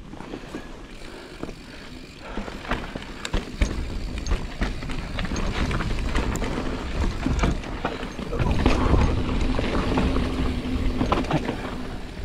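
A 2021 Giant Reign 29 2 full-suspension mountain bike rolling down rocky singletrack: tyre noise on dirt and rock, with many scattered clicks and rattles from the bike. A low wind rumble on the helmet microphone grows louder about two seconds in.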